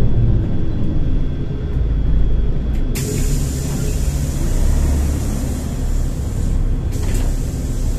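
Volgabus-5270.G2 city bus with a natural-gas (LNG) engine, running with a steady low rumble. About three seconds in, a sudden loud hiss of compressed air from the bus's pneumatic system starts and lasts about four seconds before cutting off.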